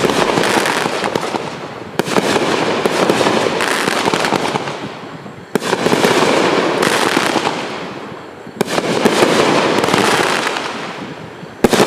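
Consumer aerial finale set cakes firing: a dense, continuous crackle of shots and breaks, with a fresh loud volley starting roughly every three seconds and tailing off.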